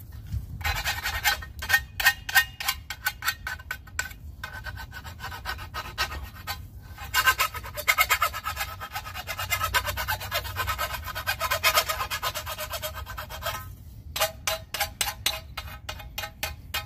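Cut end of PVC electrical conduit being scraped clean of burrs with a hand tool: rapid rasping strokes, several a second, in a few runs with short pauses between.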